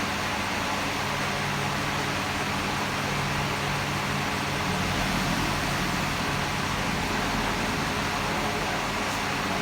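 Steady machine noise: a constant low hum under a broad rushing hiss, level and unchanging throughout.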